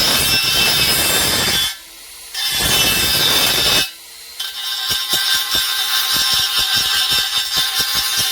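Welding on a straightened wheel rim: a harsh, rasping hiss that stops twice briefly, then goes on as a rapid, irregular crackle of sharp ticks.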